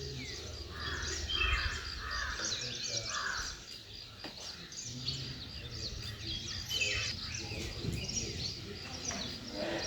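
Morning birdsong: several birds calling and chirping at once, some with harsher cawing calls, over a low rumble.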